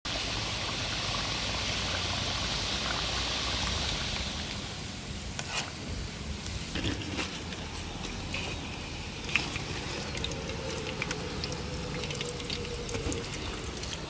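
Pork intestines (chicharon bulaklak) cooking in a wok: a steady hiss of bubbling liquid for the first four or five seconds, then a quieter sizzle with scattered sharp pops and crackles as they fry.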